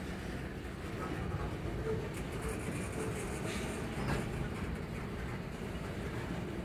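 Freight cars, covered hoppers and a gondola, rolling slowly past on the rails: a steady low rumble of wheels on track with a few faint clanks partway through.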